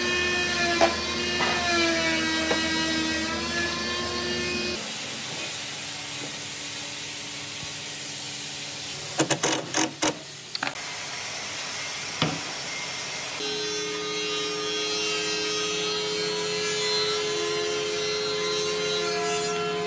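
Power tools working wood in short edited clips. A motor whine sags and recovers in pitch under load, then a quieter stretch brings a few sharp knocks about halfway through, then a steady motor whine runs again.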